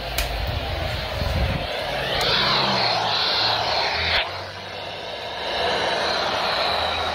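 Radio static from a weak broadcast signal: a steady hiss that grows louder about two seconds in, cuts off abruptly just after four seconds, then swells back.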